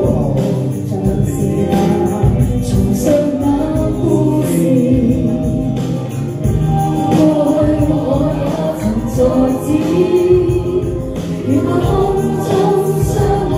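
A woman singing a pop song into a handheld microphone, her voice amplified over a karaoke backing track with a steady beat.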